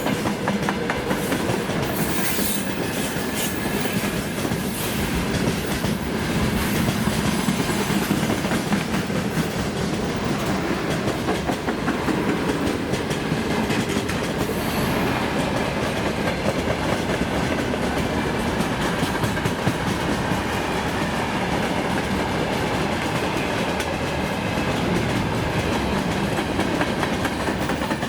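Freight train rolling past at speed, its wagon wheels clattering steadily over the rail joints.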